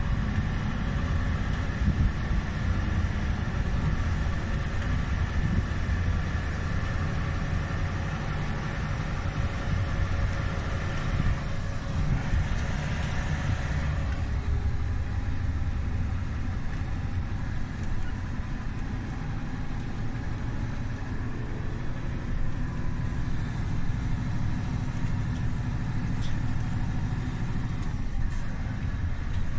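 Heavy truck's diesel engine running steadily under way, heard from inside the cab.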